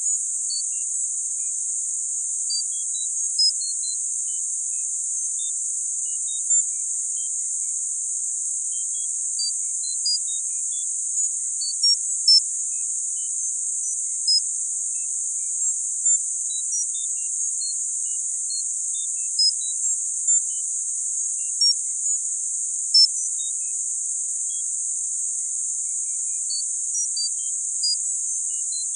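Synthesized tinnitus-masking sound: a steady, high-pitched hiss held in a narrow band, sprinkled with short high tones that ping at random pitches and irregular intervals, several every few seconds.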